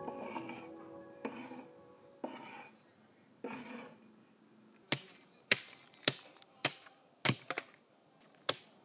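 Faint music fading away, then from about halfway through a run of sharp knocks, roughly one every half second, about eight in all.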